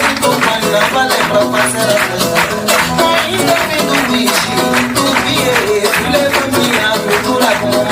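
Instrumental passage of an Angolan song: band music with a steady beat.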